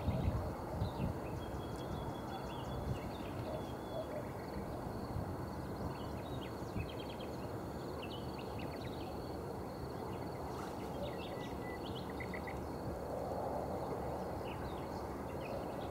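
Dusk countryside ambience: a steady wind rumble on the microphone, gustier in the first second, with scattered short bird chirps and a faint, steady high insect trill.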